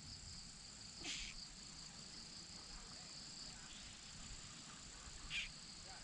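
Steady, faint high-pitched trilling of a summer insect chorus, with two short bursts of hiss, one about a second in and one near the end.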